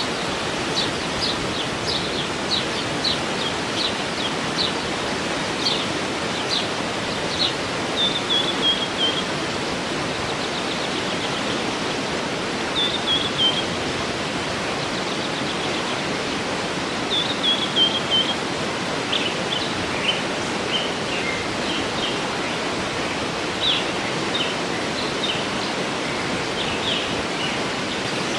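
Waterfall rushing steadily, with birds singing over it: a string of short high chirps, and now and then a quick run of notes stepping down in pitch.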